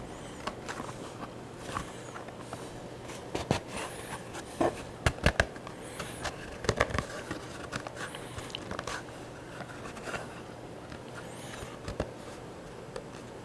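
Wet leather holster being bent, folded and pushed through its slots by hand: rubbing and handling noise with scattered light knocks and clicks, the sharpest cluster about five seconds in.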